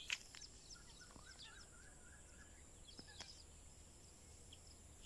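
Faint rural dusk ambience: scattered small bird chirps over a steady high-pitched hum, with one sharp click right at the start.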